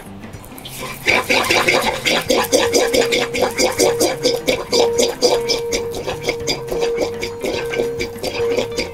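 Wooden pestle grinding a wet paste of green onion and rice porridge in a grooved ceramic suribachi mortar. Rapid, rhythmic wet scraping strokes start about a second in.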